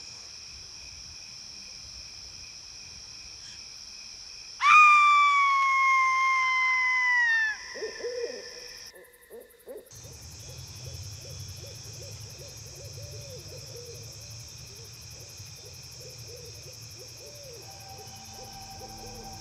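A single loud, long owl hoot that starts suddenly and sags slightly in pitch for about three seconds, over steady night-insect chirring. After it a low wavering drone runs on, and soft music tones come in near the end.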